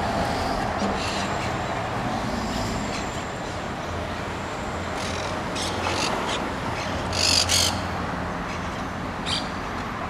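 Monk parakeets giving a run of short calls, the loudest about seven seconds in, over a steady low hum of city traffic.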